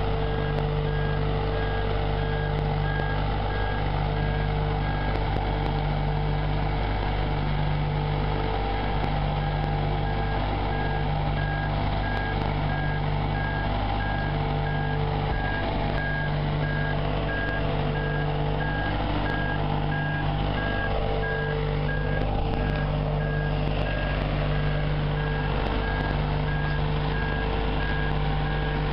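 Marine Travelift boat hoist driving on its tyres with a boat in its slings: its engine runs steadily while a travel alarm beeps at a regular pace.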